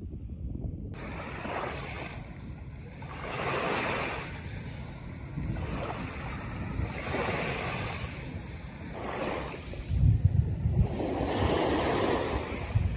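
Small waves washing onto a sandy, fine-gravel shore, each wash swelling and fading about every two seconds. Gusts of wind buffet the microphone with a low rumble near the end.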